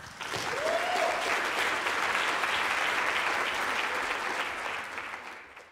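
Audience applauding, starting right away and dying away near the end.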